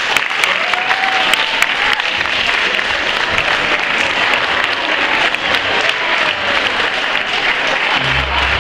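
Audience applauding steadily with dense clapping. Near the end, music with a thumping bass beat starts.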